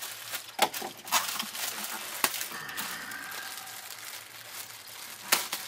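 Thin plastic bag crinkling and rustling as hands pull and crumple it, with irregular sharp crackles, the loudest about half a second in and near the end.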